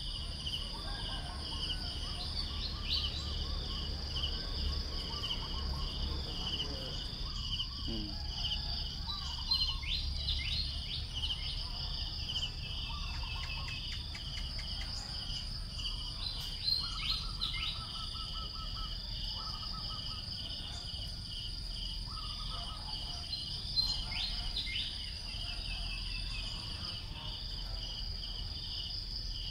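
Steady high-pitched insect chorus: one continuous buzz over a pulsing trill that repeats about twice a second, with a few short high chirps scattered through it.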